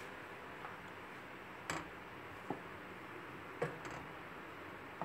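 Wooden spoon knocking and scraping against a steel pan a few times while stirring boiling milk, over a steady background hiss.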